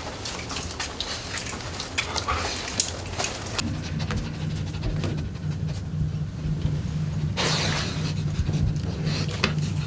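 Dog panting. Scattered clicks and knocks fill the first few seconds, and a steady low hum comes in about three and a half seconds in.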